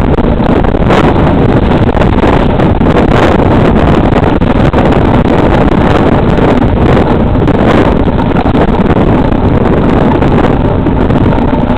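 Loud, steady wind buffeting the microphone of a camera riding on a mountain bike, with occasional knocks and rattles as the bike bounces over the trail.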